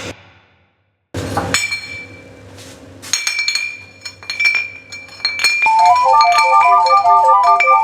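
Soundscape music: after a short hush, a brief rush of noise, then scattered clinking strikes with a ringing glassy tone. About six seconds in, a fast repeating figure of high stepped notes enters and keeps looping.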